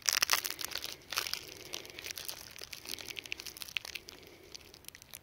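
Plastic bologna packaging crinkling and crackling as hands pull the packs apart, loudest in the first second.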